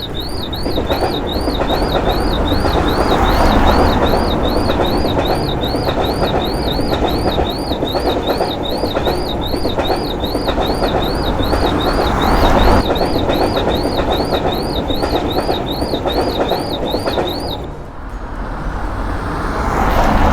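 Electronic railroad-crossing warning signal warbling up and down nearly twice a second, over the heavy rumble of a passing train. The warble stops shortly before the end.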